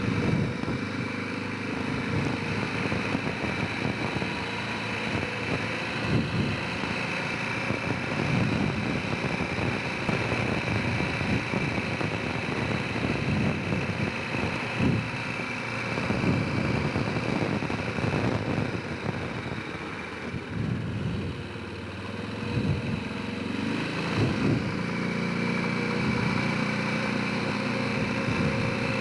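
Honda Rincon 650 ATV's single-cylinder four-stroke engine running under way, its speed rising and easing as the quad is ridden, with a steady high whine over it.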